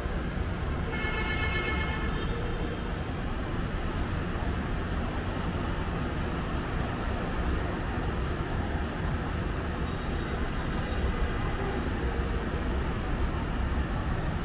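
Steady road-traffic rumble of cars, trucks and motorbikes heard from high above a city ring road and the street beneath it, with a short high-pitched tone about a second in.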